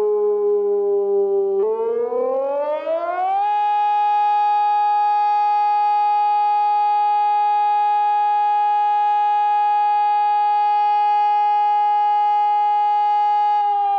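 Sonnenburg SES 600 electronic compact siren sounding the fire alarm signal in a monthly siren test. Its tone sinks slightly, then rises about a second and a half in to a steady pitch held for about ten seconds, and begins to fall again near the end.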